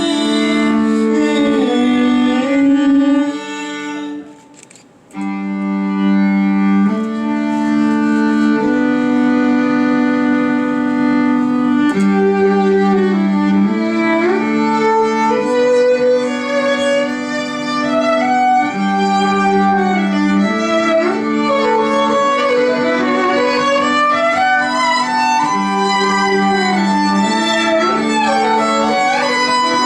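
Live band music in an instrumental break: a violin plays a moving melody over held chords. The music drops out briefly about four seconds in, then comes back in full.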